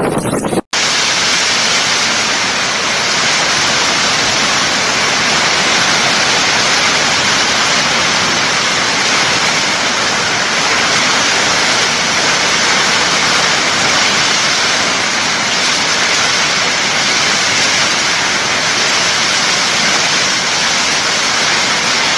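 Torrential rain pouring down as a loud, steady hiss. It starts right after a brief cutout under a second in.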